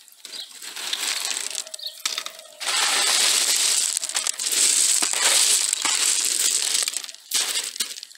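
Expanded clay grow-bed pebbles crunching and grinding against each other as they are pushed by hand back into a hole to bury an eggshell bundle. The sound is loudest and densest from about three seconds in to about seven.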